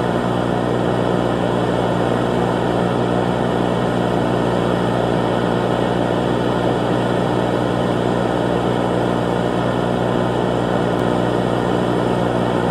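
Steady, unchanging droning noise that holds one level throughout, with a low hum under it.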